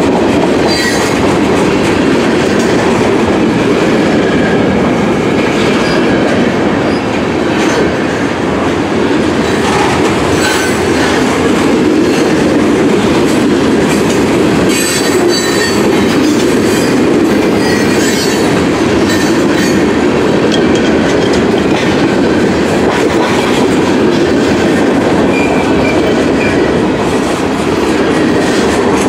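Freight train cars rolling steadily past at close range, a continuous loud rumble of wheels on rail with some clickety-clack. Brief high-pitched wheel squeals cut in now and then.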